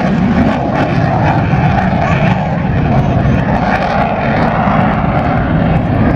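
Loud, steady jet noise from a Hawker Hunter's Rolls-Royce Avon turbojet as the jet pulls up and climbs away.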